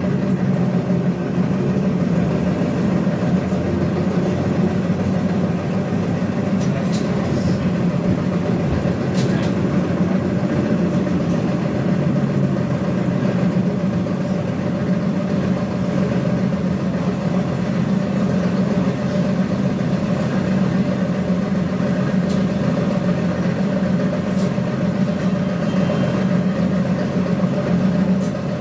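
Cabin ride noise of a ZiU-682GM1 trolleybus under way: a steady low hum from the traction drive over road and tyre noise, with a few short knocks and rattles from the body.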